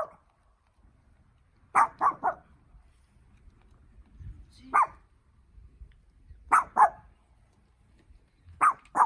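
Dog barking in short sharp barks, singly and in quick runs of two or three, about every two seconds.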